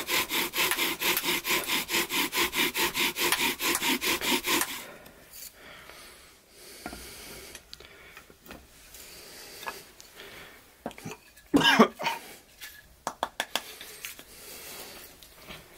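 Bow drill boring a pilot hole: an aspen spindle spun by a sheep-wool bow string, rubbing rhythmically in a spruce hearth board at about three strokes a second, stopping abruptly about five seconds in. Quieter handling of wood and tools follows, with a sharp knock a little before twelve seconds, the loudest sound.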